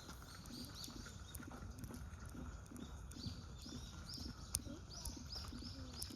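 A bird gives short, high chirps in quick runs of two or three, over faint, soft low knocks. There is a single sharp click about four and a half seconds in.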